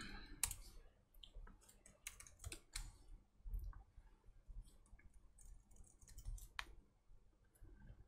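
Faint, irregular keystrokes on a laptop keyboard: a scattered run of light clicks as a command and password are typed and entered in a terminal.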